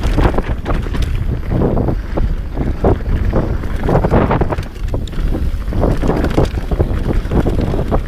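Heavy wind buffeting on the microphone while riding an enduro motorcycle off-road, over a low steady rumble from the bike, with irregular knocks and jolts from the rough ground.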